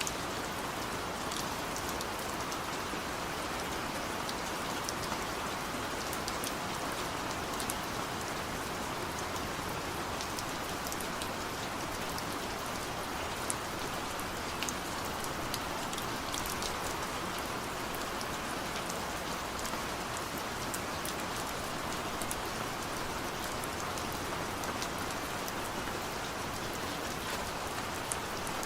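Steady rain falling, a constant hiss with many small drops ticking sharply on a surface.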